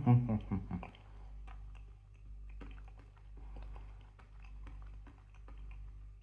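A person chewing a dried chilli pepper: scattered small crunches and mouth clicks. A short hummed 'mm' opens it.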